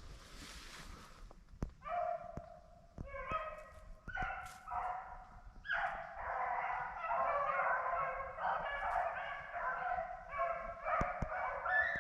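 A pack of rabbit hounds baying while running a rabbit. Separate bays come at first, then from about six seconds in many dogs give voice together in a continuous chorus.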